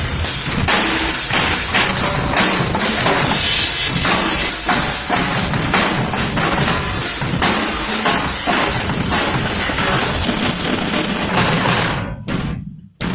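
Background music with a steady drum beat (bass drum and snare), breaking up and cutting out near the end.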